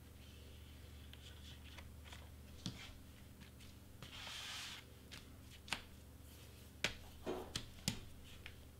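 Hands handling and sliding large cardstock pieces on a cutting mat: a paper rustle about four seconds in and several sharp taps and clicks, over a steady low hum.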